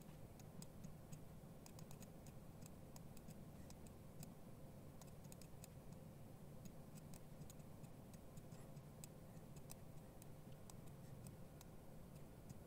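Near silence: faint room tone with scattered, irregular soft clicks of a computer mouse.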